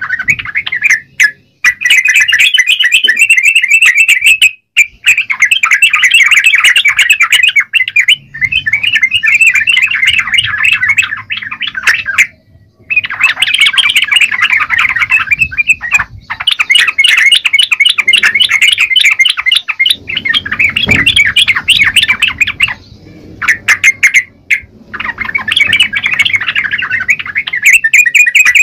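Yellow-vented bulbul singing loudly and energetically, in fast, bubbly chattering phrases that come in bouts of a few seconds separated by short breaks.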